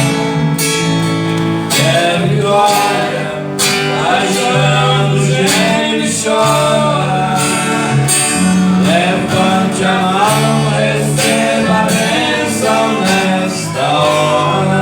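Church worship band playing an instrumental intro: strummed guitar over bass notes and drums keeping a steady beat, with a bending melody line on top.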